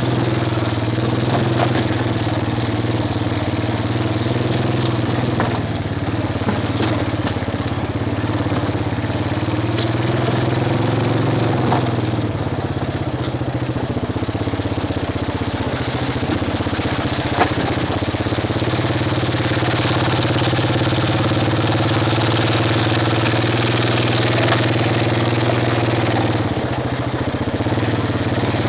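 Honda ATV engine running steadily under way, its pitch rising and falling a little with the throttle, with scattered short knocks and rattles as the machine jolts over the rough, muddy trail.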